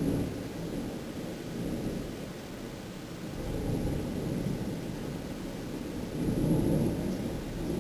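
Windstorm gusts: a low, rumbling rush of wind that swells and eases, with the strongest surge about six and a half seconds in.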